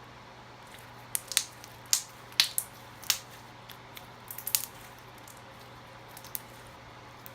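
Slime being squished and worked by hand, giving a quick run of sharp clicks and pops from about a second in, then one more pop near the end.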